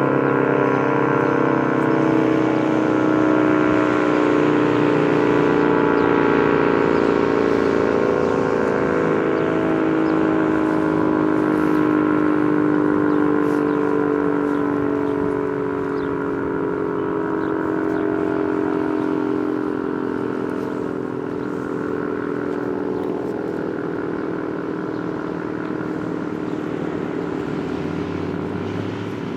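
ACA P-50 electro-mechanical tornado siren winding down, its tone sliding slowly and steadily lower as the rotor coasts. The sound swells and fades gently while getting gradually quieter.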